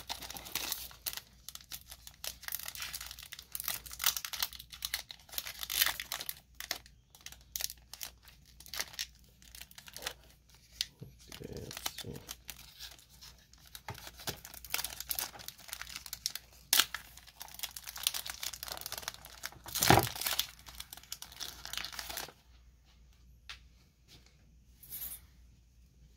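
Foil Pokémon booster-pack wrapper being torn open and crinkled by hand: irregular ripping and crackling, with one loud sharp rip about 20 seconds in. It turns much quieter near the end.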